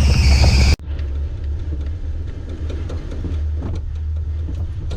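Jeep CJ-7 engine revving hard under a high squeal that could be the tires spinning or the clutch slipping, cut off sharply under a second in. After that the engine runs on as a steady low rumble.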